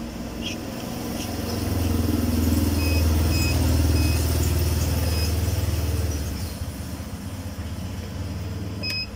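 A cash deposit machine gives short, even beeps as account-number digits are tapped on its touchscreen keypad: about five, half a second apart, in the middle, and one more near the end. Under them a low rumble swells for a few seconds and then fades.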